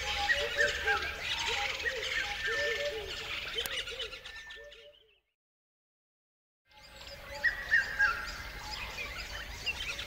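Forest ambience of many birds calling at once, with short arching calls repeated over and over above a dense chorus. It fades out about four seconds in, drops to silence for a second and a half, then fades back in.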